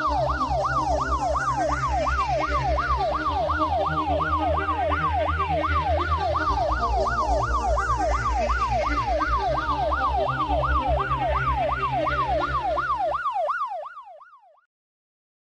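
Ambulance siren in a fast yelp, its pitch sweeping up and down about three times a second over a low steady drone; it fades out near the end.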